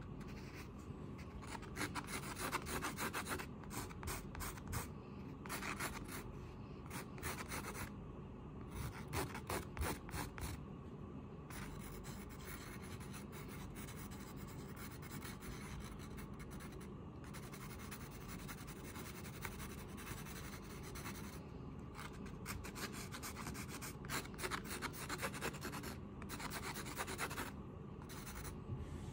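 A drawing tool rubbing and scratching on a surface in bursts of quick strokes. The strokes come through the first ten seconds and again near the end, with a quieter stretch in between and a steady low hum underneath.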